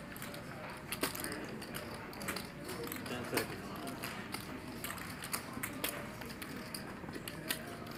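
Poker chips clicking as a player riffles and handles a stack of them in his fingers: a steady run of light, irregular clicks.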